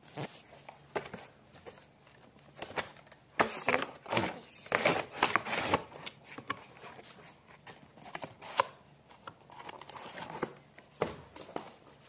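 Crinkling, rustling and knocking of a toy gun's cardboard box and its packaging being handled as the toy is packed away, thickest about three to six seconds in, with scattered clicks after.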